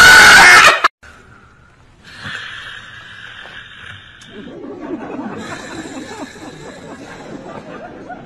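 A man's loud shout that cuts off abruptly about a second in. Then faint snickering laughter and low chatter over a steady hiss.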